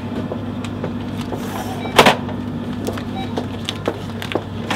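Paper-wrapped packs of sugar being handled and set on a metal supermarket shelf: light taps and rustles, with one louder rustle-and-knock about two seconds in. A steady low hum lies underneath.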